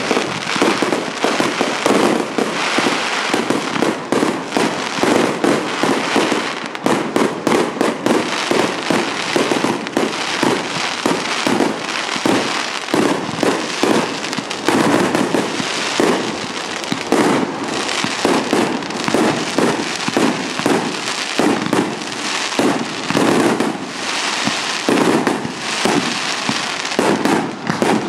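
Fireworks display: a dense, continuous barrage of shell bursts and bangs, one after another with no pause.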